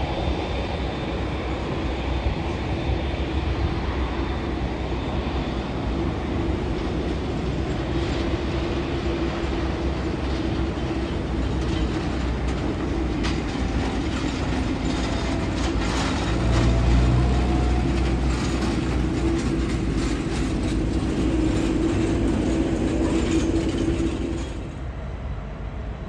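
Boeing 787 jet engines running at taxi power as the airliner rolls past: a steady hum with a held tone. In the second half comes a run of rapid clicks and rattling, and the rumble swells briefly in the middle. The sound drops suddenly near the end.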